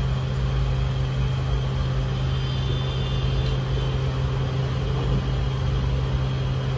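Steady low mechanical hum, constant in level, with a strong low droning tone underneath.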